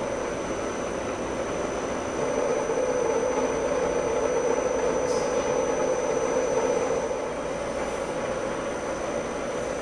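Steady machinery hum from stainless steel ice cream mix tanks with their agitators stirring, a thin high whine running under it. A lower drone swells about two seconds in and eases off around seven seconds in.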